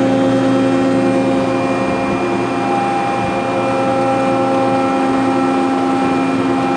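US Equipment USH3A closed-door baler running: its electric motor and hydraulic pump make a steady hum with a strong whine.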